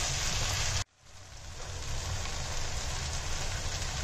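Onions and tomato sizzling as they fry in oil in a nonstick pan, with a spatula stirring them at first. About a second in the sound cuts out abruptly, then fades back up to the same steady sizzle.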